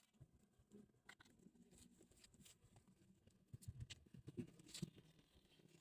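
Near silence: room tone with a few faint scattered clicks and taps.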